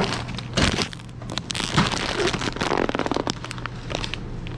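Irregular crackling and sharp clicks, with a couple of louder knocks, over a steady low hum.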